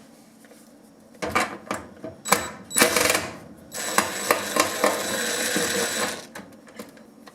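Power driver with a 1/4-inch nut-driver bit backing out screws from a range's control panel: clicking and rattling as the bit seats, then the motor runs steadily for about two seconds.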